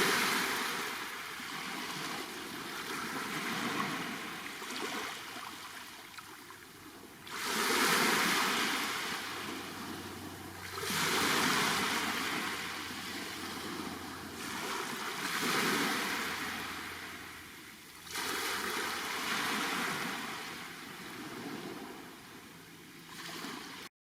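Black Sea waves breaking on the shore, each surge swelling and washing back, about every four seconds.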